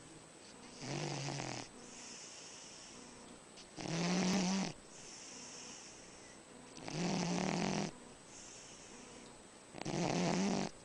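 A sleeping man snoring: four loud snores about three seconds apart, each with a low buzzing tone, with softer breathy exhales between them.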